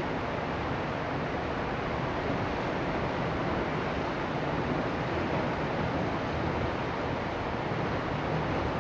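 Steady, even rush of whitewater rapids in a river.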